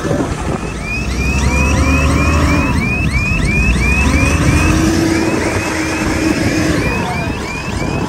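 L&T 9020 wheel loader's diesel engine working in deep snow: a deep rumble whose pitch rises in the middle. Over it comes a fast, evenly repeated high chirping, about four chirps a second.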